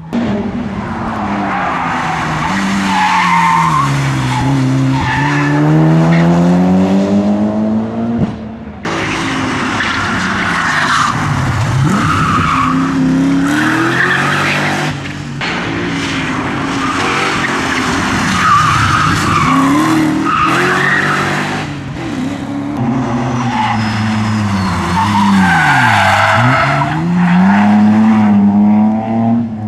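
Rally cars driven hard one after another through a tyre chicane. Their engines rev up and down as they brake, shift and accelerate, and their tyres squeal on the tarmac. The sound breaks off abruptly twice, about nine and fifteen seconds in, as one car gives way to the next.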